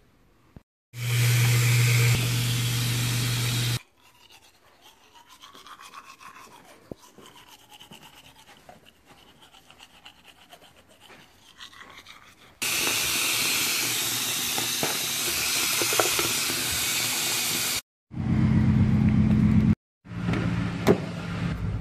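Phone-microphone handling noise: loud rubbing and scraping in several abruptly cut stretches, with a quieter stretch of faint movement sounds in the middle.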